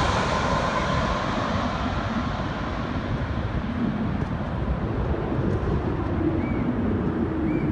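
Jet noise of a Boeing 757-200 on final approach, fading as the airliner moves away after passing low overhead: the high hiss dies away in the first second or two, leaving a steady low rumble.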